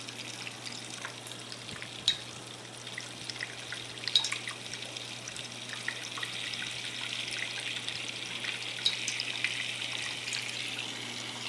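Coolant trickling out of a loosened fitting as a PC custom water-cooling loop is drained, pushed out by the loop's running pump. It is a steady trickle with a constant low hum and a few sharper drips or splashes, one about two seconds in, one about four seconds in and one near nine seconds.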